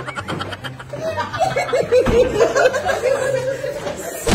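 A group of people laughing loudly together, with high, wavering shrieks of laughter.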